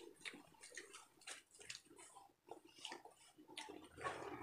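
Faint, irregular small crackles and rustles of lettuce leaves and crispy deep-fried pork bagnet being handled and torn apart by hand.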